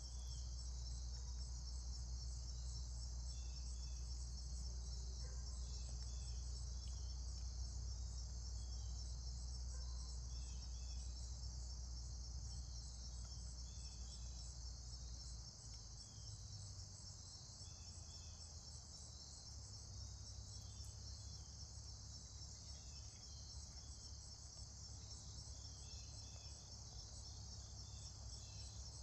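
Steady night-insect chorus, crickets trilling continuously in a high-pitched pulsing band, with scattered short chirps above a low hum that changes about halfway through.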